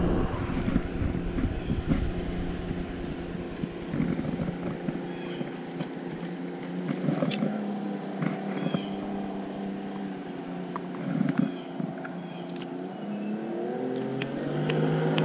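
Motorboat engine running steadily, rising in pitch and getting louder near the end.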